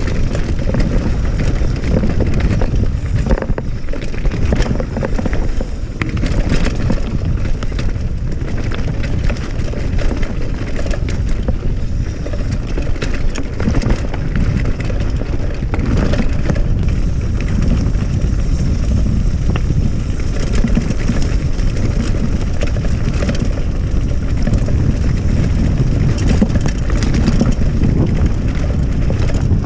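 Cross-country mountain bike rolling fast over a loose, stony trail: a steady low rumble of wind on the microphone and tyres on gravel, with frequent quick clatter and knocks as the bike jolts over stones.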